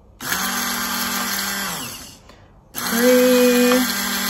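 Handheld immersion blender motor running in two short bursts, each about two seconds, switched off in between; the second run is louder. It is blending melted butter into an egg yolk in a mug to emulsify hollandaise sauce.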